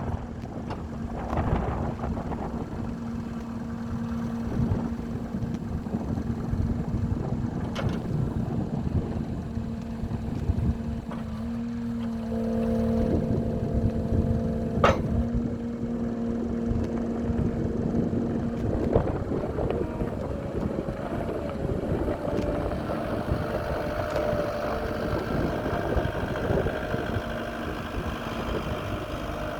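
Caterpillar 262D skid steer's diesel engine running steadily under a rumble of wind on the microphone. Its tone changes about two-thirds of the way through, and there is one sharp click near the middle.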